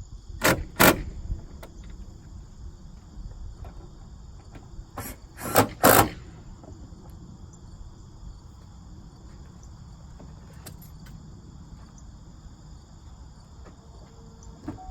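Insects chirring steadily in the background. Sharp knocks cut across it: two about half a second apart near the start, and three more in quick succession around five to six seconds in.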